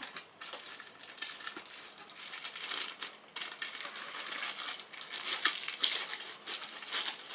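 Packaging crinkling and rustling as vacuum accessories are unwrapped and handled, in a steady run of irregular crackles.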